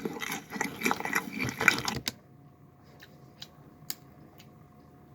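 Close-miked eating of a sandwich: crackly chewing and handling noises for about two seconds, which cut off abruptly to a quiet stretch with a few faint clicks.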